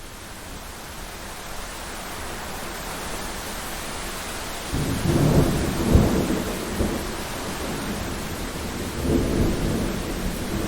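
Thunderstorm: a steady hiss of rain swells up, then thunder rumbles in about halfway through, with one sharp loud peak and a second rolling rumble near the end.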